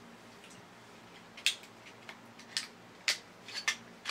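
D-cell batteries being fitted into the plastic battery box of a toy's wired remote control, and the box being handled shut: a handful of short, sharp plastic clicks and knocks at uneven intervals, starting about a second and a half in.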